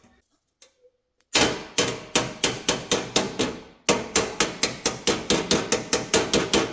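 A hammer strikes bent metal brackets on a band saw to straighten them, each blow ringing briefly. About seven blows come at a steady pace, then after a short pause a faster run of a dozen or so.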